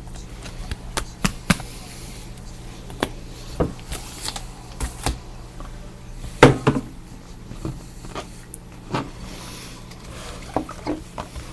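Trading cards and their packaging being handled: irregular clicks, taps and light rustles, with a louder clatter about six and a half seconds in.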